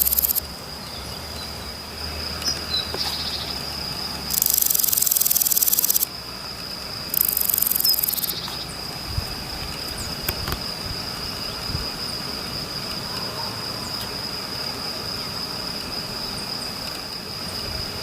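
Insects at night-chorus style: a cricket trilling steadily at one high pitch, with two loud harsh buzzing bursts of insect song about four and seven seconds in, each lasting a second or two.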